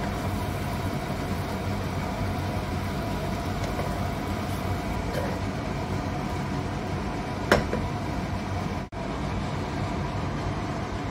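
Steady low hum and rush of a kitchen exhaust fan over a gas stove, with one sharp knock of a wooden spatula against the pan about seven and a half seconds in and a momentary gap in the sound about a second later.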